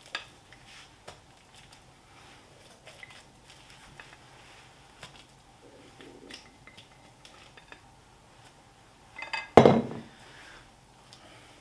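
Faint clinks and scrapes of a utensil against a glass bowl as dumpling filling is turned out of it, then one loud clunk of a dish set down on the counter near the end.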